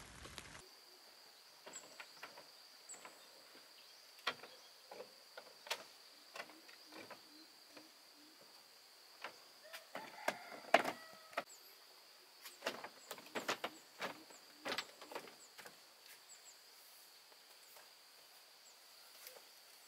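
Irregular light knocks and clicks, busiest in the middle and loudest about eleven seconds in, with a brief creaking squeak alongside, over a steady high-pitched whine.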